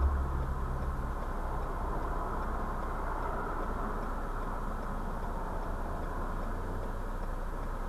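Steady low rumble of road traffic passing, heard muffled from inside a stopped car. It is a little louder in the first second or so.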